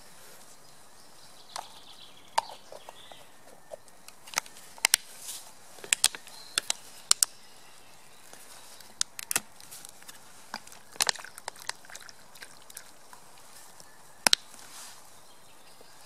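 Plastic food containers, bottles and a metal spork being handled and set down on the forest floor: a run of sharp irregular clicks and clacks, some in quick pairs, over a faint steady hiss.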